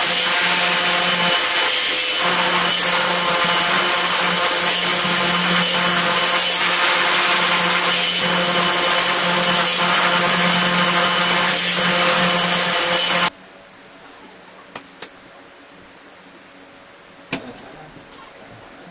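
Random orbit sander running steadily on pine stock, with a constant hum under the sanding noise. It cuts off suddenly about thirteen seconds in, followed by a few light clicks and a sharper knock as bar clamps are set on a wooden frame.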